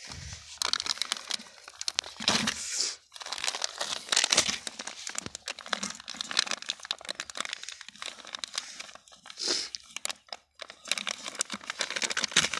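Plastic fertilizer packet crinkling and crackling as hands twist and pull at its corner to tear it open without a tool.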